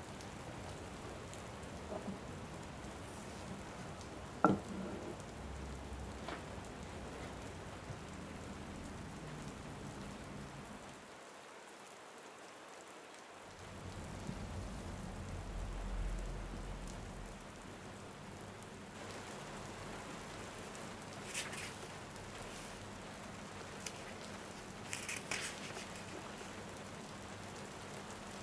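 Steady rain falling, an even hiss, with a few scattered light clicks and a soft low rumble a little past halfway.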